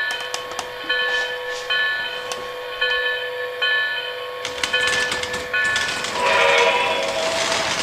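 O gauge model train running on the layout: a pitched electronic tone repeats about once a second, and about four and a half seconds in the rumble of the train's cars rolling along the track sets in.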